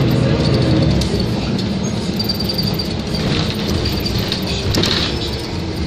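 City bus under way, heard from inside the cabin: steady engine and road rumble with small rattles.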